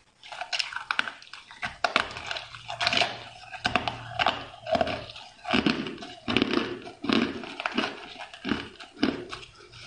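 Ice being bitten and chewed in the mouth: a dense, irregular run of crisp crunches.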